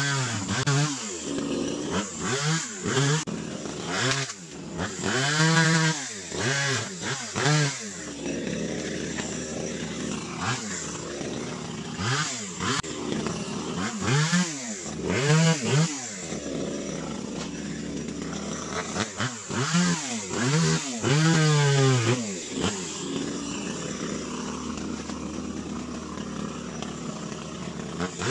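Echo CS3000 one-hand two-stroke chainsaw revved up and let fall back again and again in short bursts while cutting branches, settling to a steadier idle for a few seconds in the middle and again near the end.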